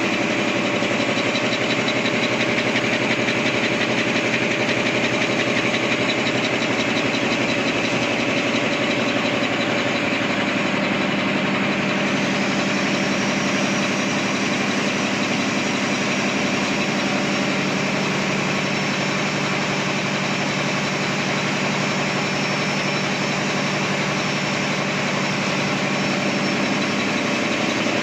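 Paper napkin making machine with two-colour printing running: a steady, fast mechanical clatter and hum, with a faint high whine joining about twelve seconds in.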